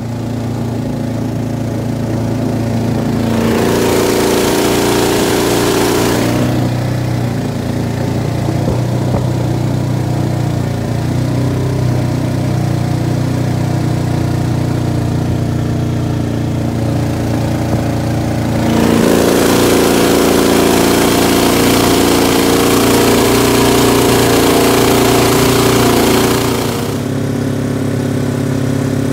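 Modified Predator 212 single-cylinder four-stroke engine driving a Mudskipper Revolution mud motor, running steadily under way. It grows louder and harsher twice: briefly a few seconds in, and again for about eight seconds past the middle.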